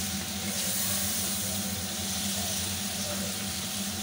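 Beef pieces frying in hot oil in a karahi: a steady sizzle, with a low hum underneath.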